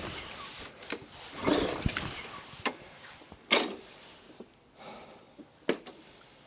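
Recoil pull-cord starter of a Briggs & Stratton 450E lawnmower engine yanked twice, about two seconds apart, with a few clicks between. The engine turns over on each pull but does not fire.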